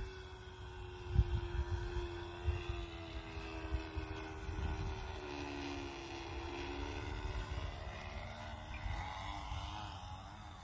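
Radio-controlled model airplane's engine droning in flight. Its pitch sags slowly and then wavers unsteadily near the end, a sound that doesn't sound good, with the engine close to quitting. Wind buffets the microphone with gusty low rumbles.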